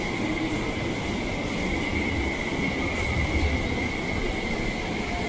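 Tokyo Metro subway train running along the platform, a steady rumble of wheels on rail with a continuous high-pitched wheel squeal over it.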